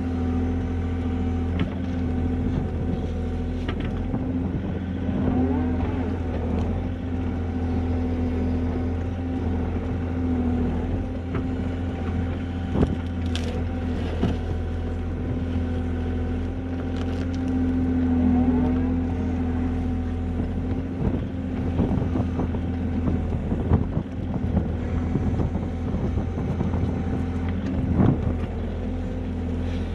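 Mini excavator's diesel engine and hydraulics running steadily under digging load, heard from inside the cab as the bucket digs out a ditch. The engine note swells now and then, and there are occasional sharp clunks from the bucket and arm, the loudest near the end.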